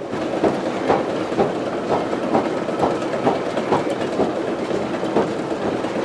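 Water-powered wool carding machine running, its drums and drive belts turning with a steady clatter and a regular knock about twice a second.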